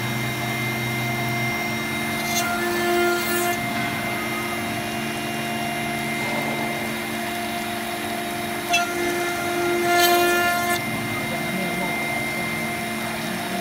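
CNC router spindle milling a hole in a brass plate with a small end mill, a steady machine whine of several held tones over cutting noise. It swells twice, around three seconds in and again around ten seconds.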